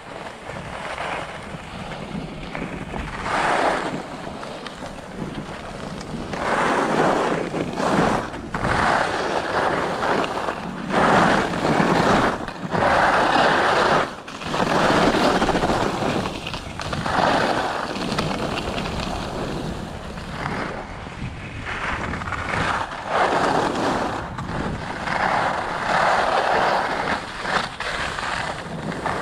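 Skis carving and scraping over groomed, packed snow, the scrape swelling and fading with each turn, with wind rushing over the microphone.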